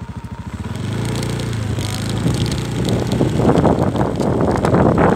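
Motorcycle engine idling with an even putter, then pulling away about a second in; from about three seconds in, wind buffets the microphone as the bike picks up speed.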